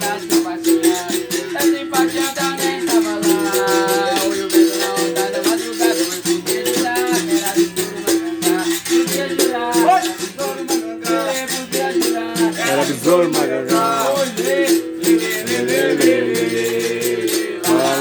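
Berimbau being struck in a steady rhythm with a caxixi rattle shaking along, under a singing voice.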